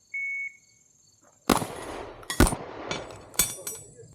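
A shot timer's start beep, one short high tone, followed about a second later by shotgun shots that come roughly one a second.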